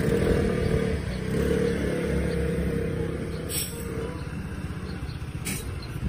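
A motor scooter's small engine running close by, a steady low rumble with a held tone that eases after about four seconds, amid street traffic.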